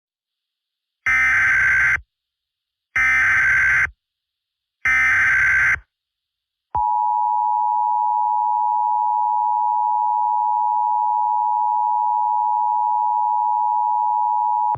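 Emergency Alert System tones: three SAME header data bursts, each a harsh digital warble about a second long with a second's gap between them. These are followed by the two-tone EAS attention signal (853 and 960 Hz), held steady for about eight seconds. This is the standard opening of an EAS broadcast alert.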